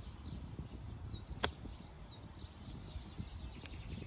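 A golf club striking the ball on a short chip shot: one sharp click about a second and a half in. A bird calls a short falling whistle three times.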